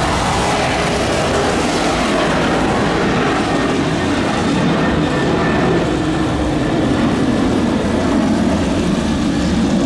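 Boeing 737 jet engines at takeoff power as the airliner lifts off and climbs away: a loud, steady roar with a tone that slowly falls in pitch.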